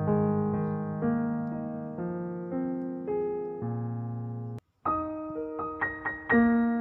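Background piano music, a slow run of single notes that each ring out and fade. About four and a half seconds in it cuts out for a moment and comes back with higher notes.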